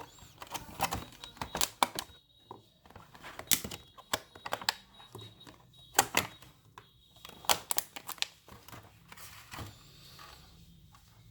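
Small precision screwdrivers and their case being handled: irregular sharp clicks and taps, a few a second, with several louder knocks, thinning out near the end.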